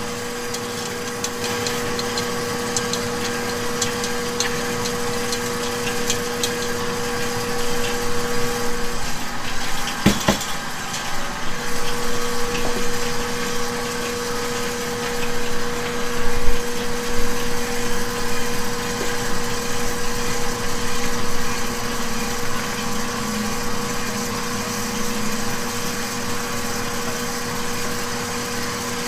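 Steady two-tone mechanical hum of kitchen machinery running, with a few light ticks early on and one sharp knock about ten seconds in.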